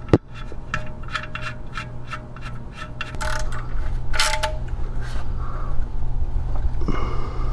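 Hand ratchet clicking in quick runs of sharp clicks as it turns a socket on a bolt, with a few louder metallic clinks about three and four seconds in.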